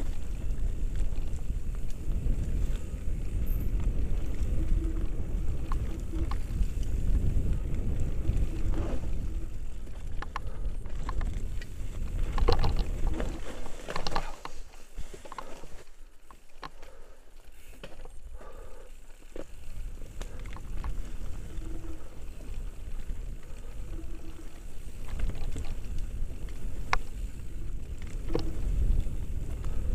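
Wind rumbling on a helmet-mounted action camera's microphone, with clattering knocks and clicks from a mountain bike riding down a rough dirt trail. The rumble eases for a few seconds about halfway through, then builds again.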